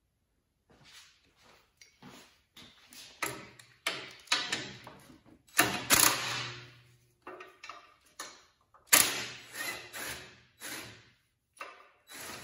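Socket wrench, a 12 mm socket on a long extension, ratcheting in a string of irregular back-and-forth strokes, about one or two a second, getting louder after the first few seconds. The bolts holding the go-kart engine to its mount are being loosened.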